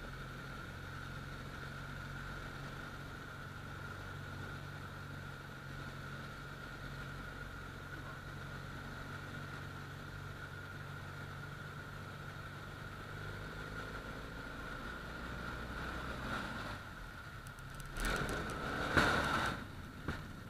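ICP Bingo ultralight's HKS flat-twin engine and propeller running steadily at low power on approach. About two seconds before the end comes a louder rough rumbling as the aircraft touches down and rolls on snow.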